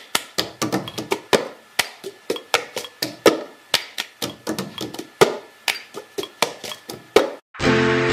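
A rapid run of sharp percussive taps, about three or four a second, each dying away quickly, that stops about seven seconds in; music with held notes starts just before the end.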